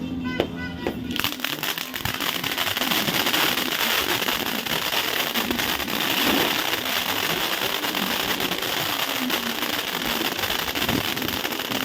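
Fireworks going off in a dense, continuous crackle of many rapid small pops, starting about a second in.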